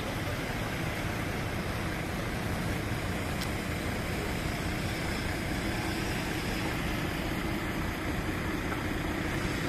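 Heavy diesel construction machinery running steadily: an even, low engine drone with no revving.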